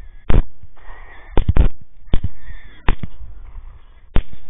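Rifle shots fired in rapid succession at running wild hogs, about seven sharp cracks, three of them close together about a second and a half in. High squealing from the hogs sounds between the shots.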